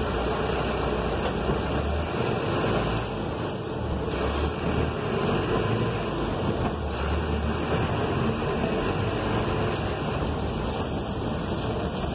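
City bus engine running as the bus pulls away and drives slowly, heard from inside the driver's cab.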